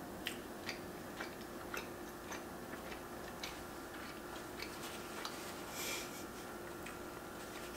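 A woman chewing a bite of homemade cheeseburger on a toasted bun, with goat cheese and arugula: soft mouth clicks about every half second. A brief paper-napkin rustle about six seconds in, over a faint steady hum.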